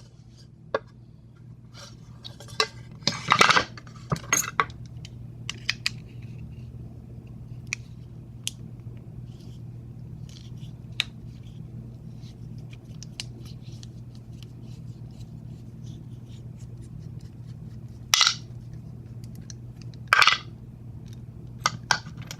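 Small metal clicks and clinks of an American 1100-series padlock being handled and taken apart, over a steady low hum. A few louder clacks stand out about three seconds in and twice near the end.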